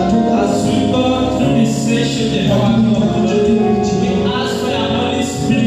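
Gospel worship music: voices singing sustained notes over instrumental accompaniment.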